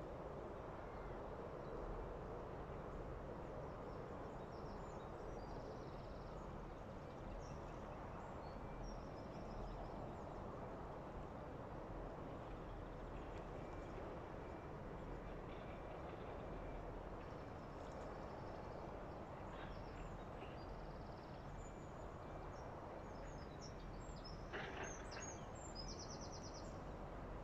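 Steady outdoor background noise, with faint, short, high bird chirps now and then.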